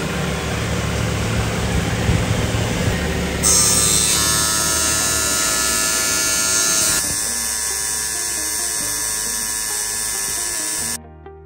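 Stone edge polishing machine running, its water-cooled saw blade cutting a 45° chamfer along a ceramic tile edge: a steady grinding whir. The sound turns brighter and hissier about three and a half seconds in, shifts again around seven seconds, and cuts off suddenly near the end.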